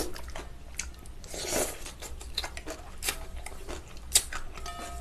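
Close-miked eating of spicy cold buckwheat noodles: wet chewing and mouth clicks, a slurp about a second and a half in, and a sharp click a little after four seconds.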